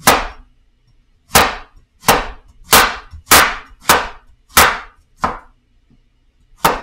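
A large kitchen knife slicing yellow crookneck squash, the blade knocking sharply on a wooden cutting board at each cut. There are nine strokes, about one every two-thirds of a second, with a pause of about a second before the last.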